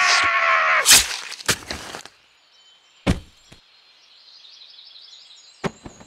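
Cartoon sound effects: a held pitched sound cuts off just under a second in, followed by a sharp crack and a smaller one. Then come a couple of clicks and faint, high bird-like chirping.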